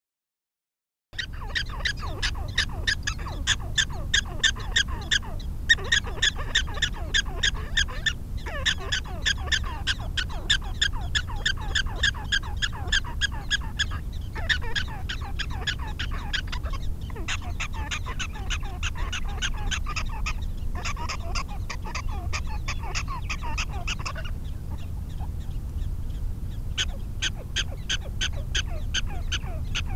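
Prairie dog alarm calls: short, sharp barks repeated rapidly, several a second, starting about a second in and kept up with only brief pauses. They are raised at coyotes approaching the colony.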